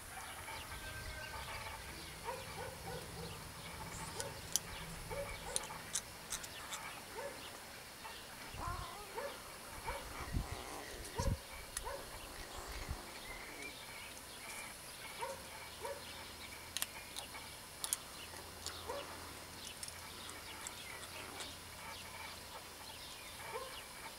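Outdoor ambience with scattered short bird calls and sharp faint clicks throughout. A few low thumps come about halfway through.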